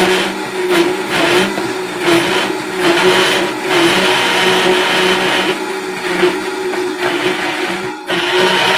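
High-powered countertop blender running at speed, blending a thick sea moss, cashew and celery juice quiche filling: a loud, steady whir, with a brief dip near the end.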